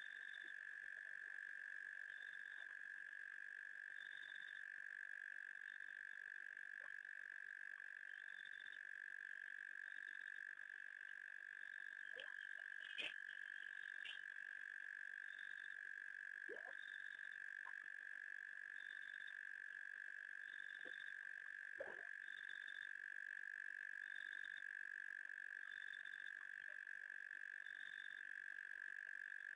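Night chorus of frogs and insects: a steady high-pitched trill that never breaks, with a higher chirp repeating every second or two. A few faint clicks come near the middle.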